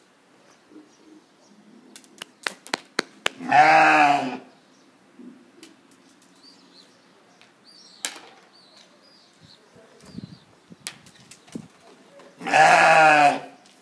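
Horned sheep bleating twice, each call lasting about a second, the second near the end.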